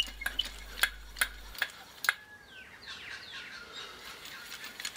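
Home-made wooden handscrew clamp spun in and out on its threaded steel rods, giving a run of sharp clicks and rattles in the first second and a half. About two seconds in, a bird gives a few short falling chirps.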